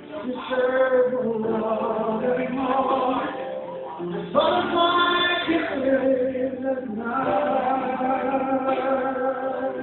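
A song with a sung vocal over instrumental backing, playing for a slow couple's dance.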